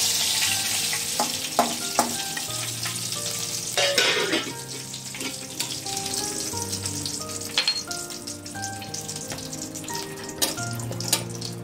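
Hot oil sizzling in a stainless steel kadai as fried hilsa fish heads are lifted out with a metal spatula. The sizzle is strongest at the start and then thins out. A handful of sharp clinks and scrapes of the spatula against the pan come through it, the loudest about four seconds in.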